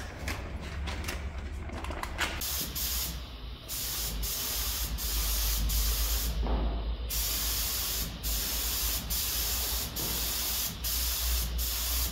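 Compressed-air paint spray gun hissing as it sprays a car body, in long stretches broken by short breaks, several of them in the last few seconds. A steady low hum runs underneath.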